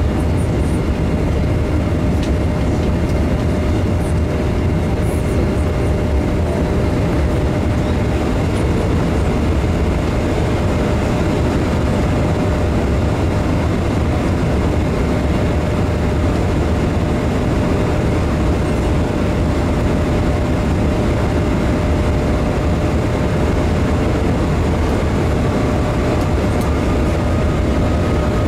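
Steady cabin noise inside a Boeing 747-400 airliner in flight: a continuous, even rush of engine and airflow noise, heaviest in the low end, with a faint steady hum on top.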